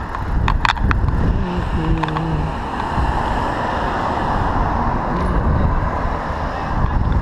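Street noise heard from a moving bicycle: wind rushing over the microphone and passing car traffic, with a few sharp clicks about half a second to a second in.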